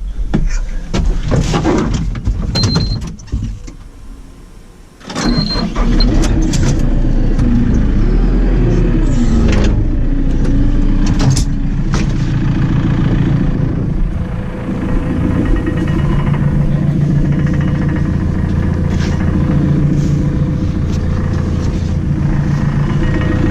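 An engine starts about five seconds in and runs steadily, its speed rising and falling between about eight and twelve seconds in. Before it, several sharp knocks and clanks.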